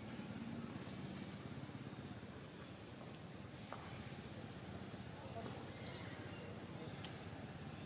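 Faint outdoor ambience with a steady low background noise and a few short high bird chirps, one right at the start and another about six seconds in.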